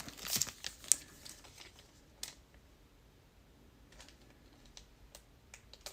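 Trading cards being handled and slid into plastic sleeves: a flurry of light clicks and rustles in the first second, then a few sparse faint clicks.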